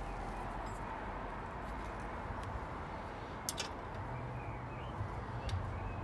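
Steady low background rumble and hiss with a few faint clicks.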